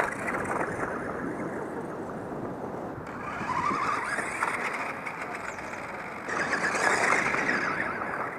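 Electric motor and gears of a Radio Shack RC Lightning toy car whining as it is driven, with a sharp click at the start. The whine rises in pitch a few seconds in as the car speeds up the jump ramp, and it grows louder again near the end.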